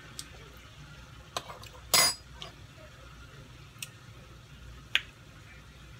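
A metal spoon clinking against a small glass bowl: a few light clicks, with one louder ringing clink about two seconds in.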